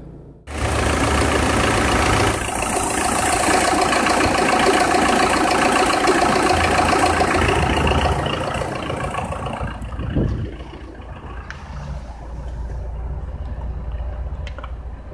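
Citroën Xsara Picasso 2.0 HDi diesel engine running, heard loud and full of hiss, coming in suddenly about half a second in and easing to a lower, steady level about ten seconds in.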